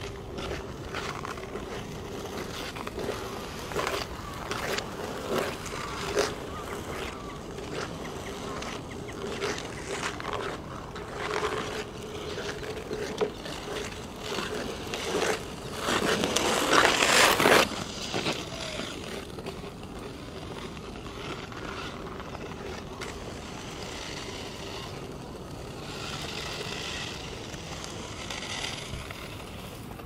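Ice skate blades scraping and gliding on hard natural black ice as skaters pass, with many short strokes and clicks. A louder, closer pass gives a long scrape about sixteen seconds in.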